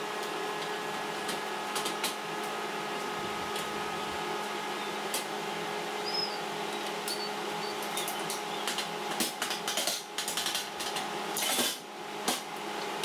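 Steady electric hum of shop equipment, with scattered light clinks and knocks of metal parts and tools being handled; the knocks come thicker in the second half, and there is a short louder burst of noise about eleven and a half seconds in.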